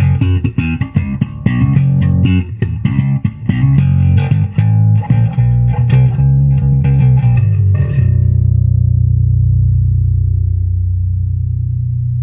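JCraft JB-1 five-string electric bass played: a quick run of plucked notes for about eight seconds, then a low note left ringing and slowly fading.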